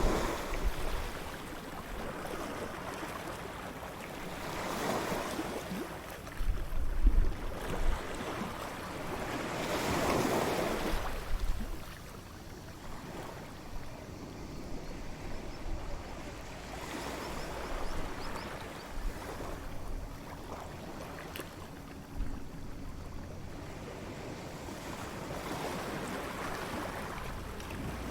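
Ocean waves breaking and washing up the shore in slow surges, the biggest about ten seconds in. Now and then a low wind rumble hits the microphone.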